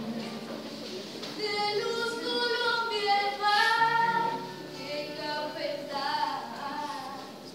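A youth chorus of school students singing, with girls' voices most prominent, in long held phrases that rise and fall in pitch.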